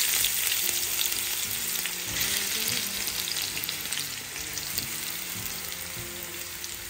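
Raw potato sticks sizzling in hot oil with cumin seeds in a frying pan. The sizzle is loudest at first and slowly dies down, and the sticks are moved about by hand near the end.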